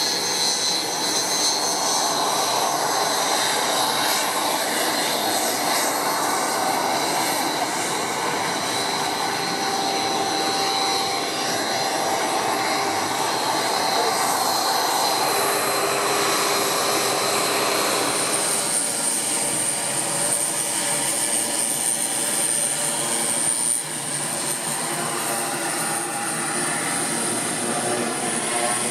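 BAE Hawk T1 jet trainers' Rolls-Royce Turbomeca Adour turbofans running at taxi power, a steady jet whine over engine rumble. About eighteen seconds in, the sound changes to a different steady engine note with a higher whine.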